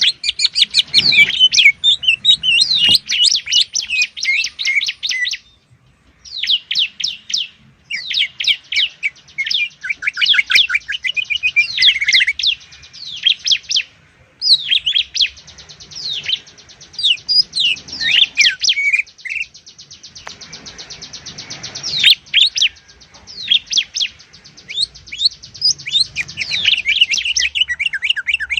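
Green leafbird and bar-winged prinia singing loud, rapid, unbroken runs of chirps and whistled notes, with a fast buzzy trill partway through. The song stops briefly twice.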